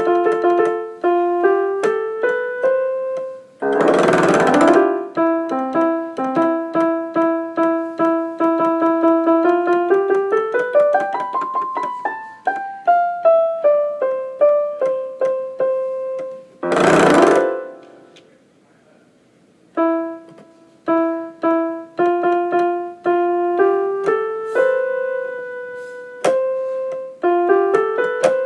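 Piano-toned keyboard playing a simple melody one note at a time. Two short loud bursts of noise break in, about four and seventeen seconds in, and a second-long pause comes soon after the second.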